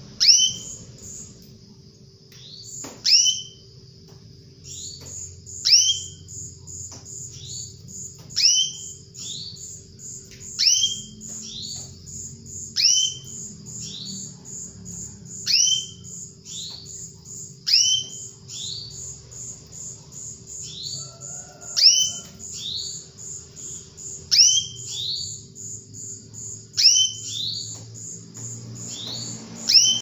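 Female canary calling to a male: repeated loud down-slurred call notes, one every two seconds or so, some doubled. Underneath runs a fast, even, high-pitched pulsing trill, about six pulses a second, from about five seconds in.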